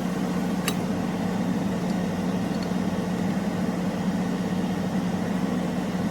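Steady low mechanical hum over an even hiss, like a kitchen appliance or fan running, with one sharp click about a second in.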